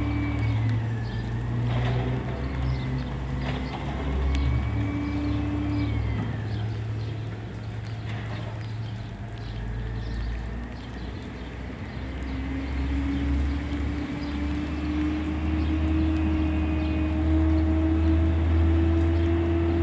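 Automated side-loader garbage truck at work: the diesel engine runs with a high hydraulic whine as the arm lifts and empties a recycling cart, with a few sharp knocks early on. The engine pitch dips partway through, then climbs slowly and holds higher for the last several seconds.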